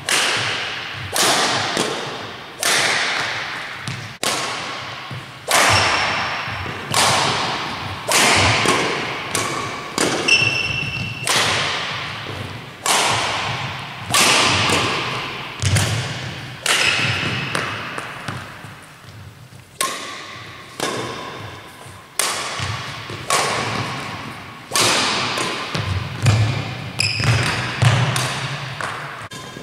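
Yonex Astrox 88 Pro badminton rackets strung with Yonex X-Bolt 63 striking a shuttlecock about once every second or so. Each hit is a sharp crack that rings on in the echo of a large sports hall.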